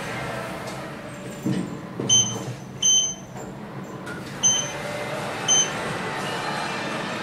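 Short electronic beeps from a Schindler 3300 AP elevator's touch-button car operating panel, one beep with each button press: four beeps, irregularly spaced about a second apart, over a steady background hum, with a dull thump early on.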